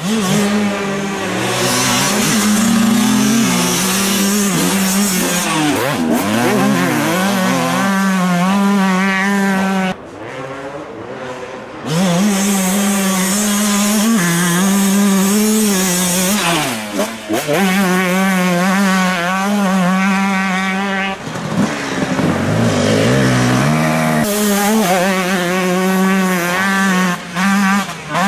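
Two-stroke motocross bike engines, among them a Honda CR125, revving hard and rising and falling in pitch as bikes pass one after another. The sound drops away about ten seconds in and comes back loud about two seconds later.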